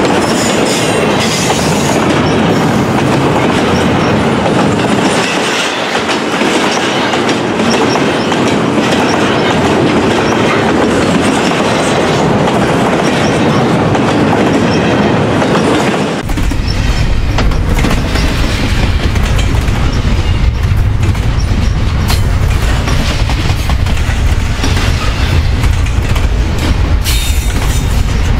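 Double-stack intermodal well cars of a long freight train rolling past at track speed: a loud, steady rumble and clatter of steel wheels on rail. About halfway through, the sound turns suddenly to a deeper, heavier rumble.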